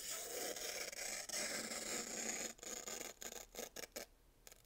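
Pocket knife blade slicing through thin paper: a soft, faint rasp for about two and a half seconds, then a few small clicks.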